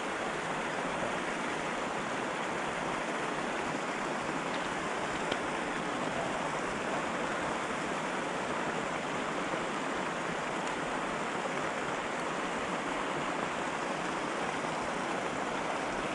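Steady rushing of water from a fountain aerator spraying on a trout pond, with a couple of faint ticks about five seconds in.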